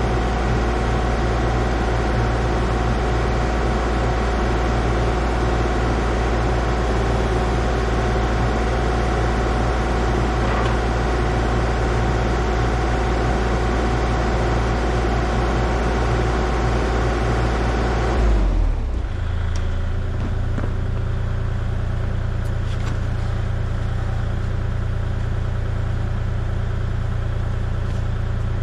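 An engine running steadily at idle. About two-thirds of the way through, the higher-pitched part of the sound drops away, leaving a lower steady drone.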